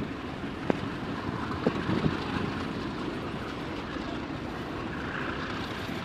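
Freight wagons of a train rolling past on the track: a steady rumble of wheels on rail, with a few sharp clicks in the first two seconds.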